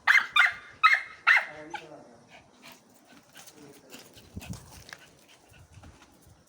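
A dog barking excitedly four times in quick succession, then whining softly in its excitement at the owner's return.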